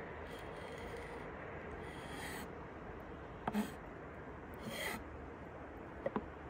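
Knife slicing salted herring on a wooden cutting board: soft scrapes of the blade through the fish and light taps on the board, a tap about three and a half seconds in and a quick double tap near the end, over a faint steady hiss.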